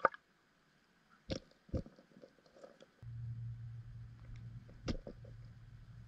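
Sharp knocks and clicks picked up through an underwater camera's housing, the loudest right at the start and a pair about a second later. A low steady hum sets in suddenly about three seconds in.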